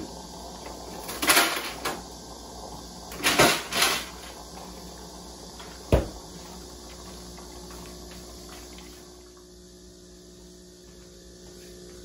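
Wiswell capsule coffee machine brewing into a mug: a steady low pump hum, with two short loud bursts of hissing noise in the first four seconds and a sharp click about six seconds in.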